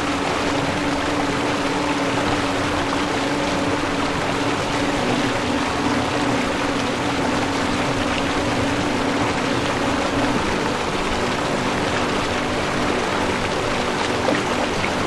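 Rushing stream water, steady and even, with a low drone held underneath.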